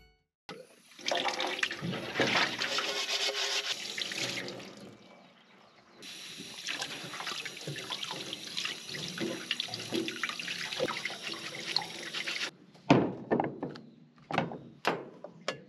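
Tap water running into a stainless steel sink as dishes are rinsed by hand, in two stretches with a short break between. Near the end, several sharp knocks as dishes and utensils are set down in a metal drying rack.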